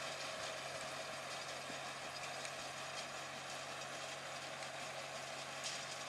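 John Deere 6200 tractor's four-cylinder diesel running steadily, with a few faint ticks and rattles.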